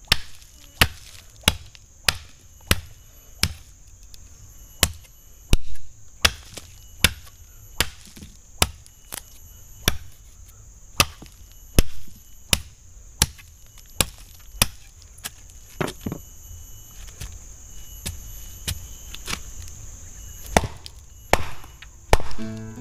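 Wood being chopped with a blade: sharp, regular strikes about one and a half a second, pausing for a few seconds about two-thirds of the way through before resuming. A steady high insect buzz runs underneath.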